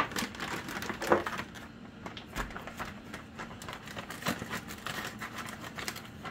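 Kitchen handling noises: a run of irregular clicks and taps with some light crinkling, the sharpest click at the very start and another about a second in, as ingredients and packaging are handled for the powdered sugar step.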